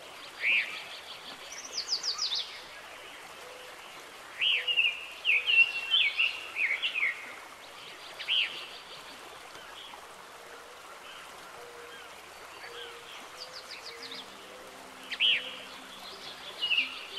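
A songbird singing outdoors: short phrases of quick down-slurred whistles and trills, repeated several times with pauses between them, over a steady background hiss.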